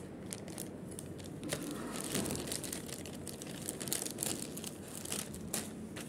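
Clear plastic packet crinkling as it is handled, in short scattered rustles.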